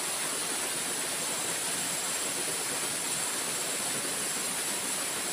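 Steady, even rushing hiss of flowing river water, with a thin, steady high-pitched whine over it.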